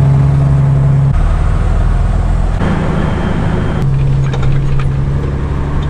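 Semi truck's engine running under way, heard from inside the cab: a steady low drone that changes abruptly a few times.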